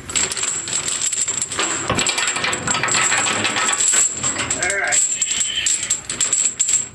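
Galvanized anchor chain rattling and clinking continuously, link over link, as it is fed by hand down into a chain locker and piles up on itself.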